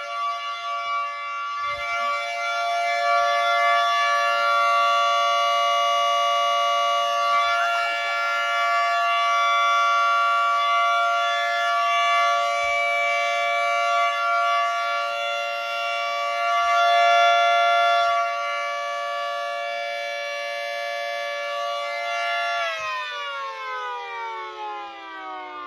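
Outdoor tornado warning sirens sounding a steady tone in a test activation. About 23 seconds in they wind down, the pitch falling and fading.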